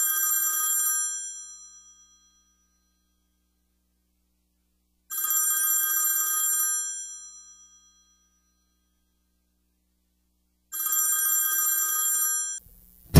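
Telephone bell ringing: three rings about five and a half seconds apart, each about a second and a half long with a short fading tail. The last ring is cut off short near the end.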